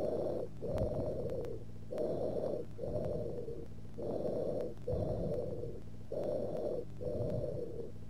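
Tubular bronchial breath sounds heard through a stethoscope over consolidated lung: four breaths, each a shorter high-pitched inspiration, a brief gap, then a longer, prolonged expiration.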